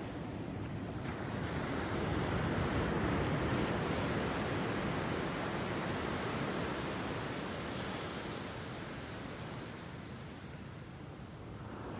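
Ocean surf breaking and washing up a sandy beach: a steady rush that swells a few seconds in and eases near the end.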